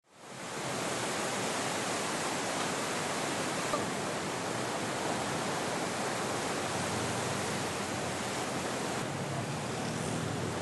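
Steady rushing of fast-flowing floodwater, fading in from silence over the first second.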